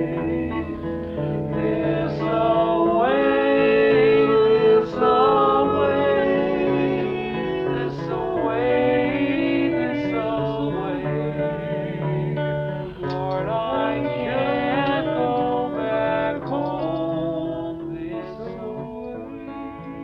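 Music with plucked guitar and a wavering, gliding melody line over it, growing quieter near the end.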